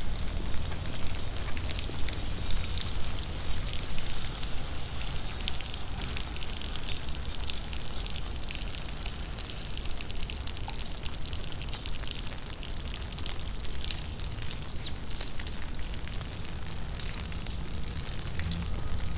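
Steady rain pattering, a dense crackle of small drop ticks, over a continuous low rumble.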